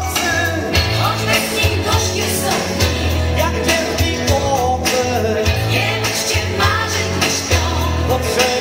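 A man singing a Polish pop hit live into a microphone over a recorded backing track with a steady bass and beat, amplified through small PA speakers.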